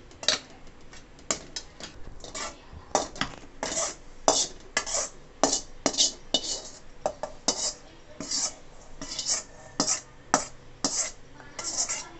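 Stainless steel slotted ladle scraping and clinking against a steel kadai and a steel mixer-grinder jar as sautéed onion and tomato are scooped into the jar: a run of irregular sharp metal clinks and scrapes, a couple a second.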